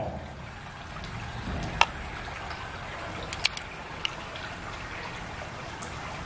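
Wet trickling and squelching from the flesh of an opened freshwater mussel as fingers squeeze pearls out of it, with three sharp clicks in the middle.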